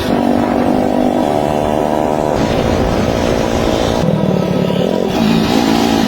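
Scooter engine running and revving, its pitch rising and falling in steps, with abrupt jumps where the sound is cut.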